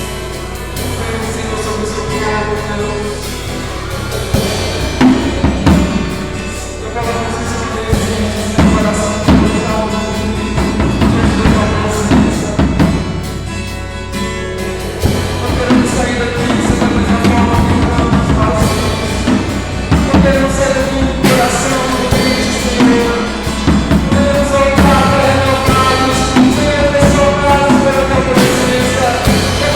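Live worship song: a drum kit with cymbals, acoustic guitar and a singing voice, recorded on a phone's microphone. The band gets louder through the second half.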